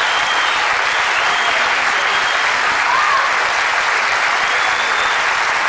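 Concert hall audience applauding steadily and loudly at the end of an orchestral performance.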